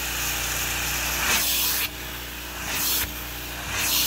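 Carpet extractor's hand tool spraying and vacuuming solution out of carpet over a running vacuum motor hum. The hiss swells on each pass and drops abruptly as the tool lifts, three times.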